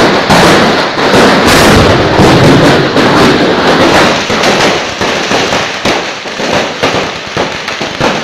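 A fireworks stall's stock of hundreds of fireworks set off all at once by accident: a dense, continuous barrage of crackling bangs that thins into more separate bangs in the last few seconds.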